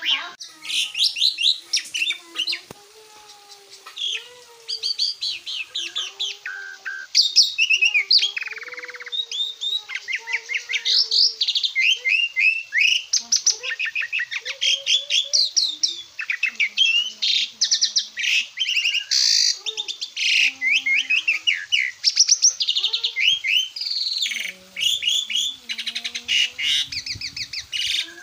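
Asian pied starling (jalak suren) singing a long, varied song of rapid chattering notes and whistled glides, with a brief lull about two seconds in.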